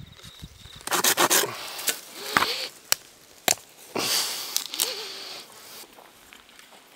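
Rough rubbing and rustling noises in short irregular spells, with two sharp clicks about three and three and a half seconds in.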